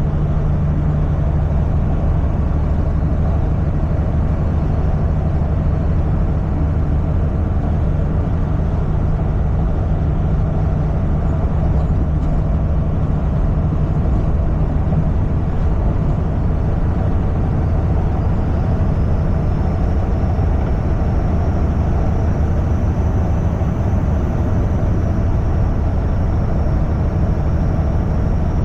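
Semi truck driving at a steady speed: a continuous low diesel engine drone under an even rush of road and wind noise.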